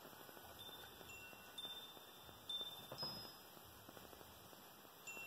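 Faint wind chimes ringing: scattered single tones at several different pitches, each dying away within about a second. A few faint soft knocks come in the middle.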